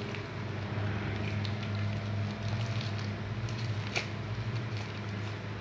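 A plastic bag of thick white glue being squeezed out into a bucket of wall-filler paste: faint plastic crinkles and wet squishes, with a sharp click about four seconds in. A steady low hum runs underneath.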